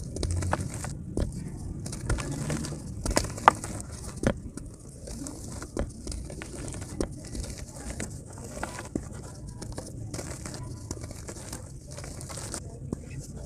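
Dry clay-dirt lumps crunched and crumbled by hand, with many sharp crackles as chunks break and crumbs pattering down into shallow muddy water.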